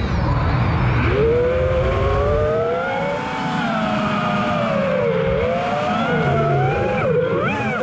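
FPV freestyle quadcopter's brushless motors whining, several pitches gliding up and down together as the throttle changes, with a quick rise in pitch near the end.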